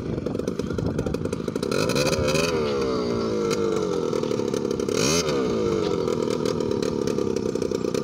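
Small quad bike engine idling, revved up twice, about two seconds in and again about five seconds in, each time rising in pitch and falling back.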